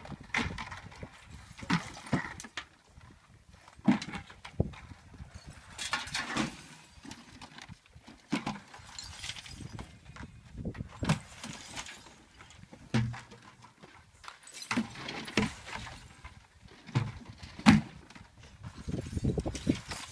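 Broken glass and trash being tipped out of buckets into a metal roll-off dumpster: a series of clattering crashes every second or two, with the sharpest bang near the end.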